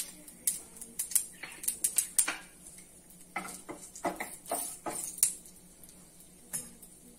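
Dried red chillies and mustard seeds crackling with scattered pops in a little hot oil in a nonstick frying pan. A wooden spatula stirs and scrapes the pan around the middle.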